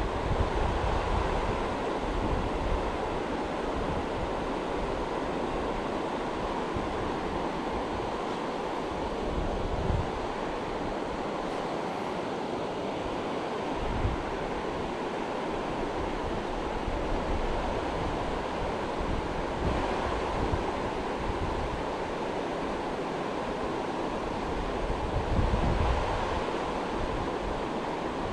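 A river's flowing water, a steady rushing. A few gusts of wind buffet the microphone, most strongly near the start and about three-quarters of the way through.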